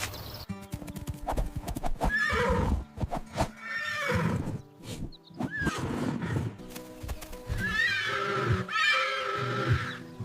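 Horses whinnying, about five quavering, falling cries, with hooves clip-clopping between them, over background music.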